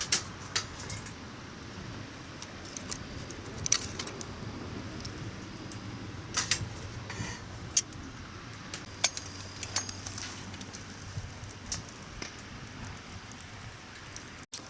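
Light metallic clinks and clicks of cookware and utensils being handled, coming irregularly over about a dozen strokes, above a steady low rumble.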